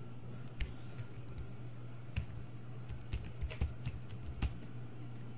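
Computer keyboard keys clicking as text is typed, in irregular keystrokes, over a steady low hum.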